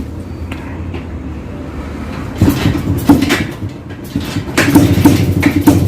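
Old Jawa two-stroke motorcycle engine being kick-started, catching and firing in two uneven spells of rapid beats, from about two and a half seconds in.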